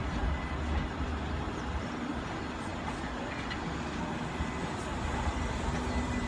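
South West Trains electric multiple-unit running past across the tracks: a steady rail rumble with a low rumble that swells and fades.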